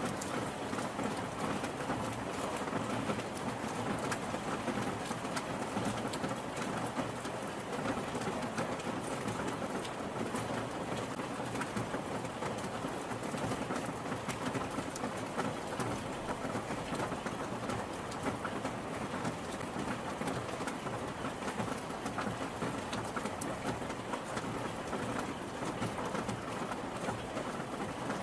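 Steady rain falling, an even wash of noise with the quick patter of individual drops striking a surface.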